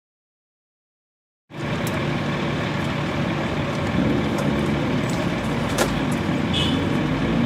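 Dead silence for about the first second and a half, then a steady rumble of parked fire engines' diesel engines idling.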